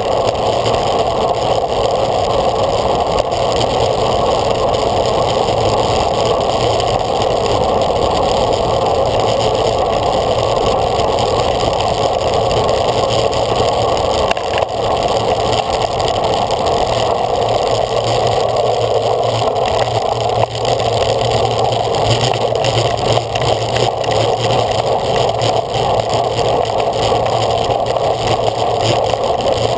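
Steady rush of wind buffeting a bicycle-mounted camera's microphone, mixed with tyre and road noise, as a road bike rides at racing speed.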